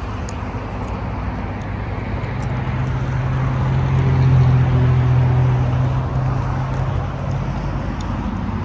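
A motor vehicle running over steady traffic-like noise. A low engine drone swells about two seconds in and fades again about seven seconds in.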